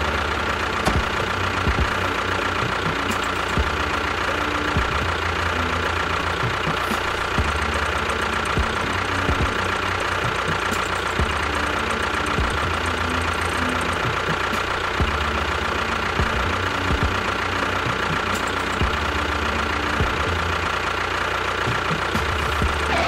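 Engine-like running sound with a knocking beat and a constant high whine, holding steady throughout.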